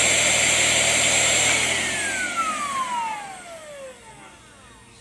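Shark CH701 Cyclone Pet handheld vacuum running steadily, then switched off about two seconds in. Its motor whine falls in pitch as it spins down and fades out.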